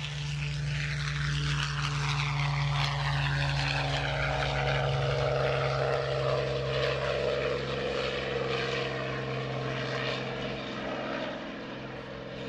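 Supermarine Spitfire Mk VC's Rolls-Royce Merlin V12 engine at take-off power as the fighter runs along the grass, lifts off and climbs away. Its pitch drops as it passes, and it is loudest midway before easing off slightly near the end.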